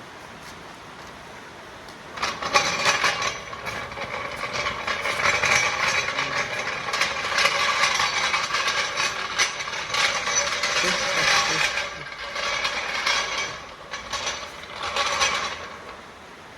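A wrench turning a wheel's lug nuts during a tyre change: a rapid mechanical rattle that starts about two seconds in, breaks off briefly twice, and stops near the end.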